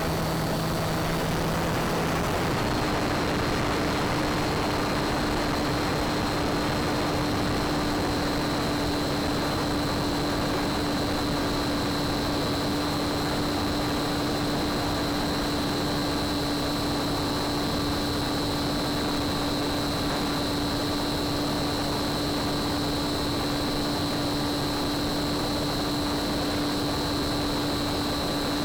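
Bixler RC plane's brushless pusher motor and propeller running steadily in flight, with its hum under a heavy rush of wind noise. The hum steps up in pitch about two and a half seconds in, and a thin high whine runs alongside it.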